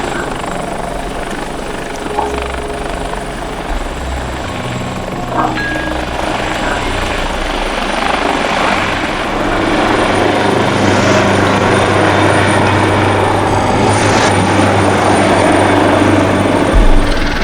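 Helicopter running steadily, growing louder from about halfway through.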